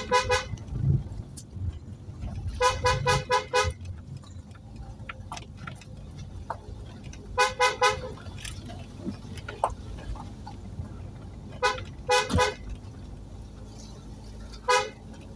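Car horn sounding in quick bursts of two to four short toots every few seconds, over the low hum of the car climbing the road. It is the warning honk given on a narrow one-lane uphill road so that any oncoming vehicle knows the car is coming.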